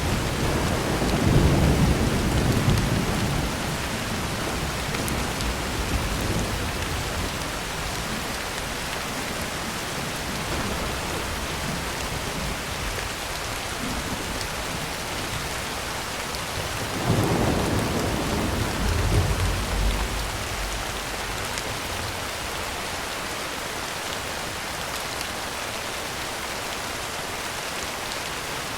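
Heavy rain falling steadily on a tin roof, with thunder rumbling in the first few seconds and again a little past halfway.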